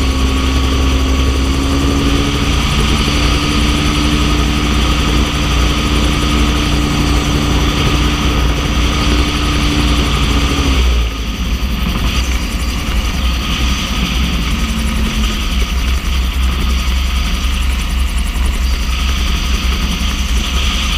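Xenon gyrocopter's piston engine and pusher propeller running at a steady note under heavy wind buffeting on the microphone; about halfway through the engine note drops away as the throttle comes back for the descent to land.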